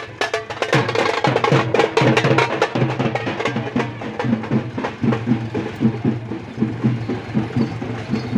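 A group of large two-headed marching drums beaten with sticks in a fast, steady, loud beat, deep thuds mixed with sharper cracks.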